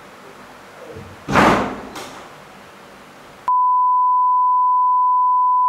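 A loud bang about a second and a half in, then a steady high-pitched beep, the test tone of a colour-bar test pattern, which cuts in sharply about three and a half seconds in.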